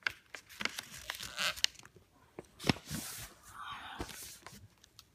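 A sheet of white paper being folded and creased by hand: rustling and crinkling with a string of sharp crackles and taps, the loudest crackle close to three seconds in.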